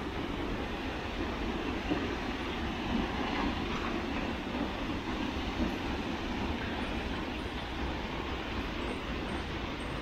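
Steady rushing noise of a waterfall, unbroken and even.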